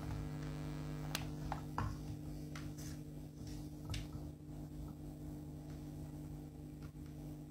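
Steady low hum with a few faint, scattered clicks and taps, mostly in the first half; no melody is being played.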